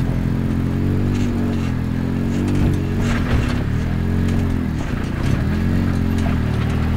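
Arctic Cat Wildcat side-by-side's engine working as it crawls up a rocky ledge, its pitch rising and falling several times with the throttle. There are a couple of short knocks about three seconds in.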